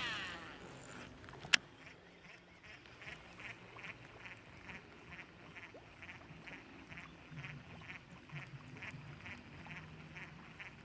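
A spinning reel casting a lure: line whirs off the spool, and about a second and a half in there is a sharp click as the bail closes. Then the reel is cranked to retrieve the lure, ticking evenly about two to three times a second.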